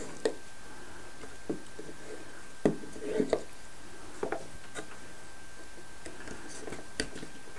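Scattered light taps and knocks of plywood model-boat kit parts being handled and pressed together on a wooden table, with the occasional rub of hands on the wood. A faint steady high-pitched whine runs underneath.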